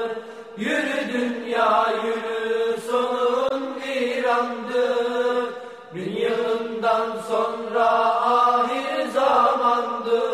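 Unaccompanied Turkish ilahi: a voice singing long, ornamented held notes in two long phrases, the second starting about six seconds in.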